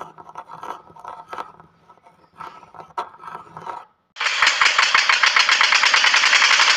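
A few faint clicks and knocks from handling the switch, then about four seconds in a small DC motor starts driving a miniature homemade flour mill through a belt, with a sudden loud, fast rattling buzz.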